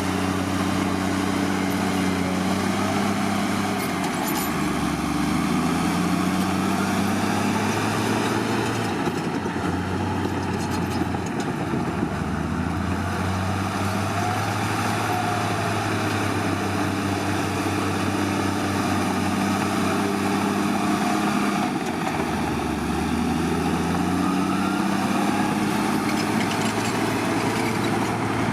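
Heavy diesel engine of earthmoving machinery running steadily, its note dropping and coming back up several times.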